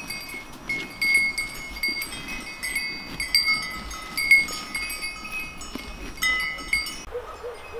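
Cowbells on grazing cattle clanking irregularly, several bells ringing at different pitches at once. The ringing drops out near the end.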